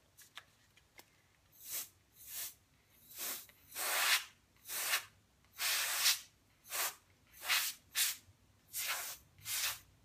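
Can of compressed-air duster giving about a dozen short hissing blasts, starting about two seconds in, blowing wet alcohol ink across paper.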